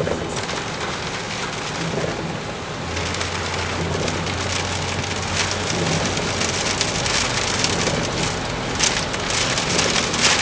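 Steady rushing noise inside a moving vehicle, with scattered sharp ticks like rain on the roof and glass, and a low engine hum that sets in about three seconds in.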